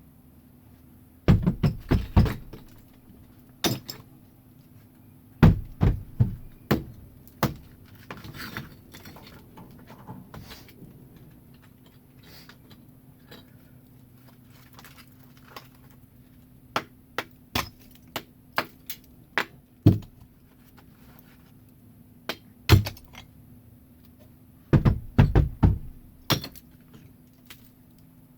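Brick chimney being torn down: irregular sharp knocks, clunks and clinks of bricks and mortar being broken loose and handled, coming in quick clusters with short pauses between.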